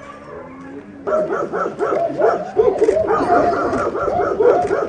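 Many shelter dogs barking together in their kennels, a dense chorus of overlapping barks and yips that turns loud about a second in. Before that, a quieter dog gives one long whine falling in pitch.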